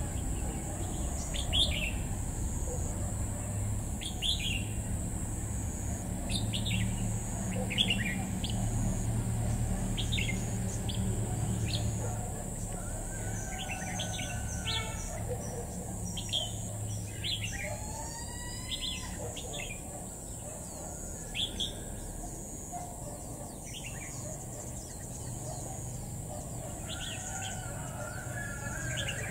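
Red-whiskered bulbuls calling: a string of short, sharp chirps, with a quicker run of rising and falling notes a little past the middle.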